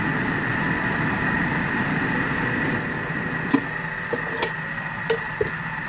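Air fryer drawer pulled open: a few light clicks and knocks from about three and a half seconds in, over a steady hum with a high whine from a running kitchen appliance.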